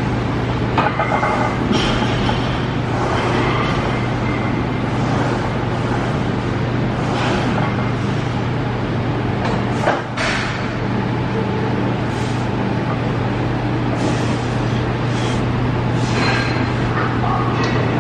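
A steady low hum, with a few short irregular noises as a plate-loaded hip thrust machine is worked through its reps.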